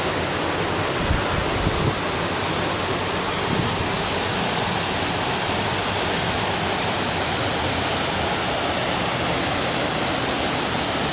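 Waterfall and rapids pouring over rocks: a steady, full rush of water.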